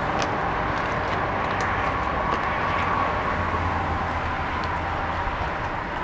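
Steady wind and road noise on a bicycle-mounted GoPro while riding, a low rumble with a hiss, and a few faint clicks here and there.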